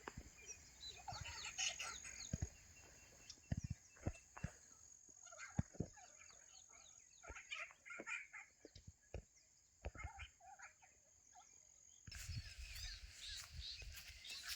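Chickens clucking in short, scattered calls, with intermittent knocks and a steady high-pitched whine in the background that stops about twelve seconds in.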